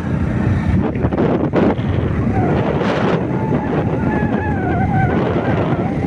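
Wind buffeting the microphone over the running engine of a motorcycle moving along a dirt road, a steady rumbling rush.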